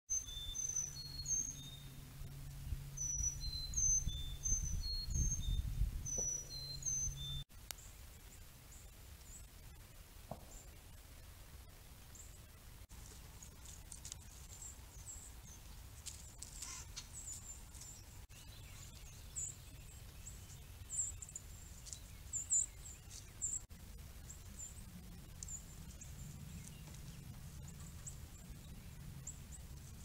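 Small songbirds chirping: a quick series of high, repeated two-note chirps over a low steady rumble for the first seven seconds or so, then, after an abrupt change, fainter scattered high chirps.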